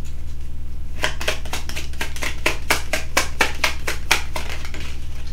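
Tarot deck being shuffled by hand, the cards slapping together in a run of rapid clicks that starts about a second in, over a steady low hum.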